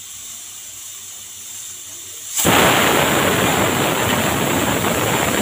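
Pressure cooker hissing as it releases steam: a steady hiss that becomes much louder about two and a half seconds in.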